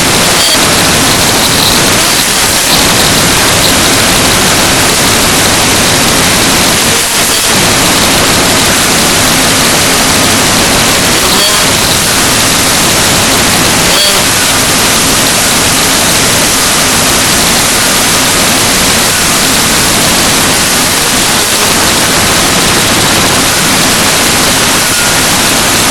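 Loud, steady hiss of static-like noise filling the whole sound track, the sign of a faulty audio recording.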